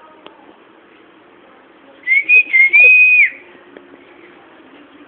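A person whistling at a dog: one wavering whistle a little over a second long, starting about two seconds in, held briefly and dropping off at the end.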